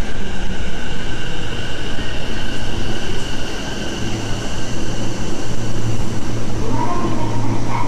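Rinkai Line electric train in the underground station, a rumble with a steady high whine; a low hum grows louder about halfway through.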